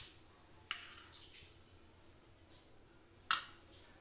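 A metal spoon clinking against a stainless steel pot of water, once lightly about a second in and once louder near the end, over a faint steady hiss.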